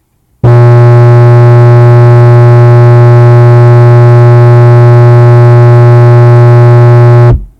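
A 40 Hz test tone at 0 dB played loud through a Sony MHC-EC99i mini hi-fi stereo with subwoofer. It comes through as a steady, buzzy drone thick with overtones, a distorted rendering of the low tone, starting about half a second in and cutting off near the end.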